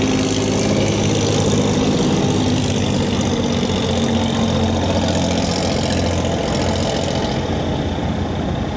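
Cargo boat's engine running steadily as the boat motors past, a low steady drone with a hiss of water over it; the hiss fades near the end as the boat draws away.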